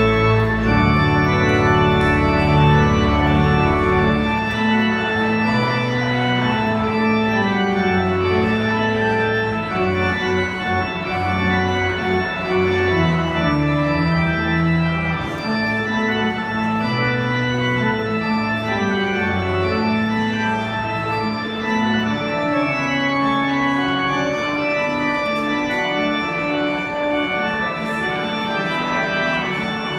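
Church organ played from a two-manual console with pedalboard: sustained chords that move from one to the next every second or so. Deep bass notes sound under the chords for about the first half and then drop away.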